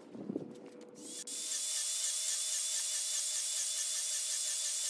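Electric miter saw running at full speed, a loud steady high whine starting about a second in, as it cuts a row of kerf slots across a wood strip.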